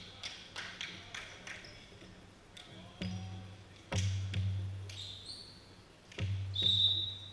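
A volleyball bounced several times in quick succession on a hardwood gym floor, then struck three times in a rally, each hit echoing in the gym. Short high sneaker squeaks on the court floor come twice near the end, the last one the loudest sound.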